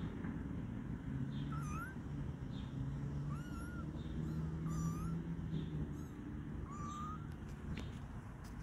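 Grey stray kitten mewing: a run of short, high calls about a second apart, each rising and falling in pitch.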